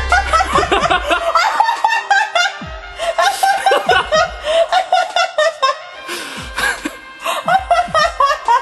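People laughing hard in quick repeated bursts after a punchline, over background music.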